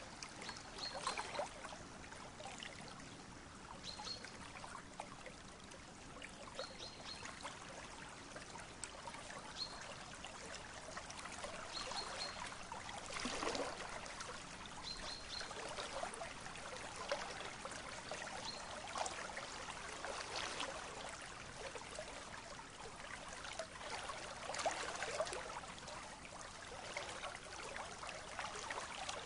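River water flowing and trickling over a shallow bed: a steady rush with louder, uneven swells every few seconds.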